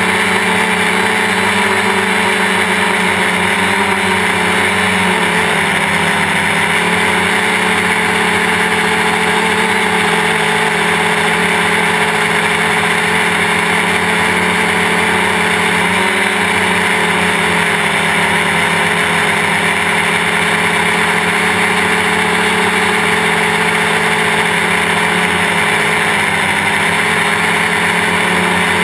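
Quadcopter's electric brushless motors and propellers running in flight, heard from a camera mounted on the frame: a loud, steady buzzing whine of several tones that shift slightly in pitch as the motor speeds change.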